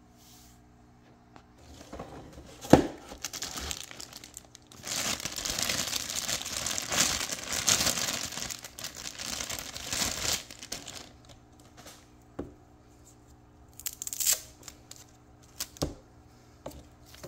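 Clear plastic bag crinkling as the laptop's wrapped power adapter and cord are handled. The crinkling is loudest for about five seconds in the middle, after a sharp knock near the start, and a few short knocks and rustles follow near the end.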